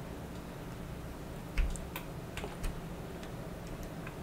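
A few scattered, light clicks of a computer mouse and keyboard, one with a soft thump about a second and a half in, over a low steady background hum.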